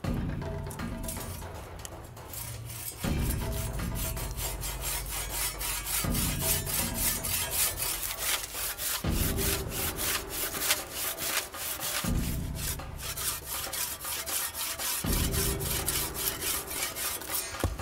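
Japanese handsaw cutting through an olive tree trunk by hand: quick, even strokes rasp through the wood, starting about a second in. Percussive background music plays underneath.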